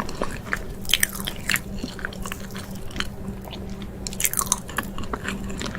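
Close-miked mukbang eating: irregular bites and chewing with sharp crackly mouth sounds, over a steady low hum.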